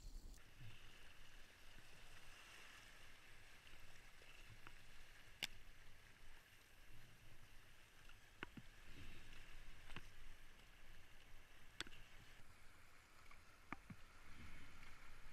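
Faint steady rush of fast-flowing river water around a kayak being paddled down a small rapid, with a few sharp clicks scattered through it.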